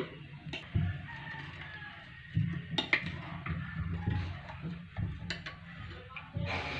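A steel spoon stirring a thin coconut-milk mixture in a glass bowl, clicking against the glass a few times, over a low steady hum.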